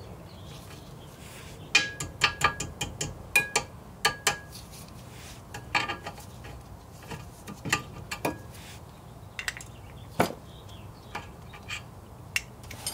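Sharp metal clicks and clinks of diagonal cutters gripping and working a cotter pin out of the wheel-bearing hub nut, some ringing briefly. They come in quick irregular clusters for most of the first eight seconds, then a few scattered clicks follow near the end.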